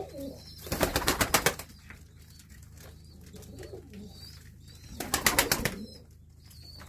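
Turkish tumbler pigeons flapping their wings in two short bursts of rapid wing beats, about a second in and again near the end, with faint pigeon cooing in between.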